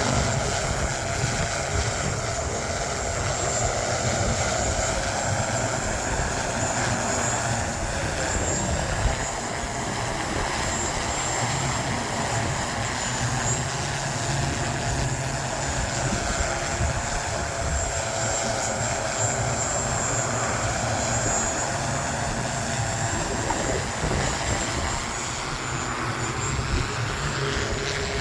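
BBA QC1 VTOL aircraft's propellers running steadily in flight, a continuous drone with a thin high whine above it, over low wind rumble on the microphone.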